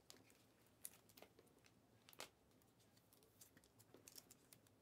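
Faint handling of a stack of Panini Optic basketball cards being flipped through by hand: a few soft, sharp clicks and slides as cards are moved from the front of the stack to the back, over quiet room tone.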